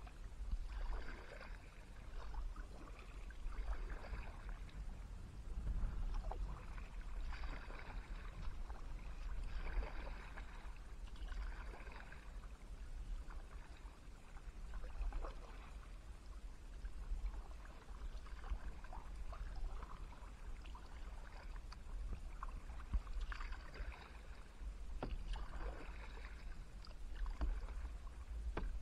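Kayak paddle strokes in calm water: the blade dipping in and dripping, a wash of splashing about every two seconds, over a steady low rumble.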